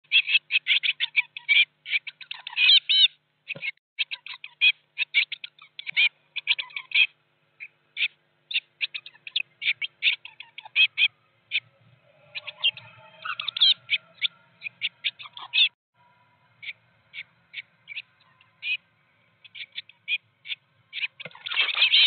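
Blue tit nestlings calling inside the nest box: many short, high cheeps in quick clusters with pauses between. Near the end they break into loud, continuous begging as a parent comes in to feed them.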